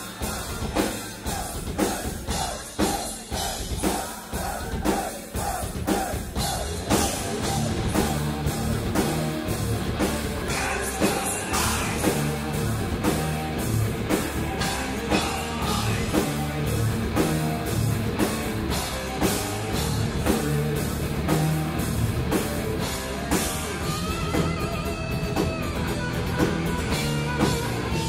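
Heavy metal band playing live, with fast drum-kit strokes under electric guitars, recorded from within the crowd.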